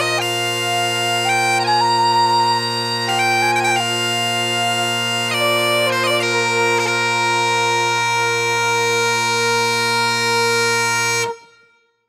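Great Highland bagpipes playing: steady drones under a chanter melody that steps between notes, then settles on one long held note. About a second before the end the pipes cut off suddenly, and silence follows.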